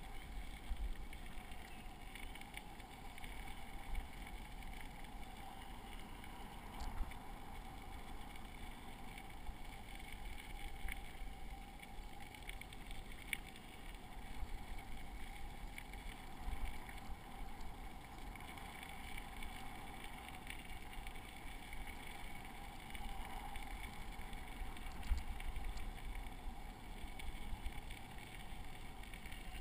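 Bicycle rolling along a gravel trail: steady tyre rumble on loose gravel with wind on the microphone, jolted now and then by bumps, and a few brief clicks.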